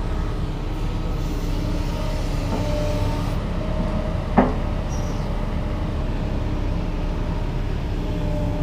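Heavy machinery engine running steadily, with a single sharp knock about four seconds in.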